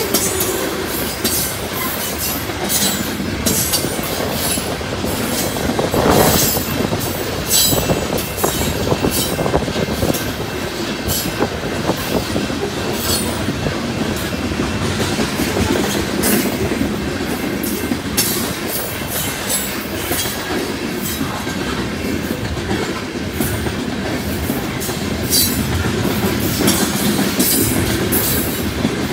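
Loaded coal cars of a freight train rolling past, their steel wheels rumbling on the rails with frequent irregular sharp clicks and high squeaks. One louder clatter comes about six seconds in.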